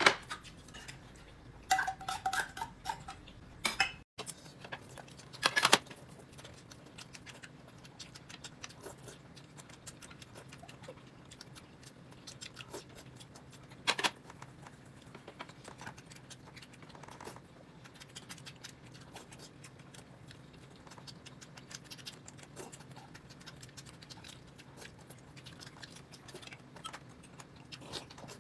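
Dishes and cutlery clinking and tapping at a meal: many small scattered clicks with a few louder knocks.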